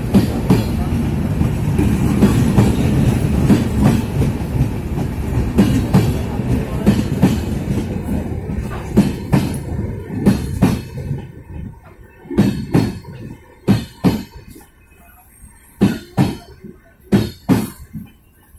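Passenger coaches of an arriving express train rolling slowly past on the rails. A steady rumble of wheels is shot through with clicks. About ten seconds in it thins out to separate pairs of clacks as wheel sets cross rail joints, coming a second or more apart as the train slows.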